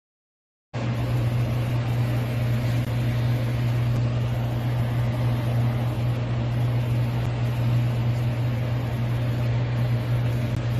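Steady machine hum with an even rushing noise, starting abruptly about a second in and holding unchanged.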